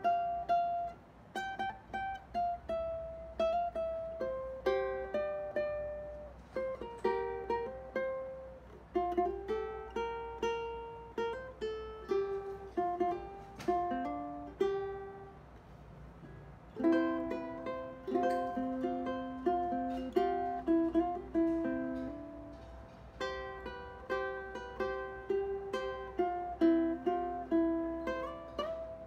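All-mahogany BWS tenor ukulele played solo, with plucked notes forming a melody with chords. There is a short lull about halfway, then the playing picks up again.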